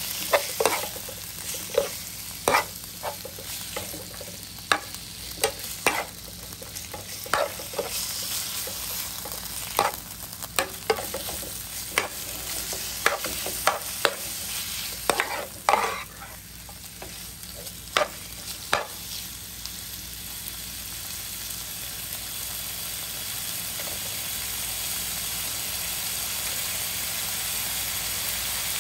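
Thinly sliced beef sizzling in a hot frying pan while a metal spatula scrapes and clicks against the pan as it stirs. The stirring strokes stop about two-thirds of the way through, and the steady sizzle carries on, growing a little louder.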